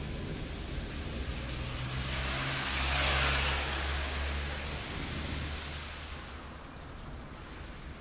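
A vehicle passing on a wet road: tyre hiss and a low rumble swell to a peak about three seconds in, then fade away.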